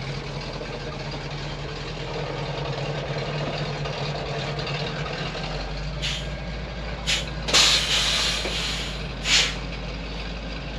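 Dump truck engine running steadily, with several short, loud hisses in the second half, the longest lasting about a second.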